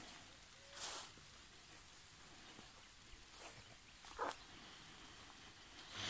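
Faint outdoor ambience: a steady low hiss, broken by three short soft hisses about one second, three and a half seconds and four seconds in.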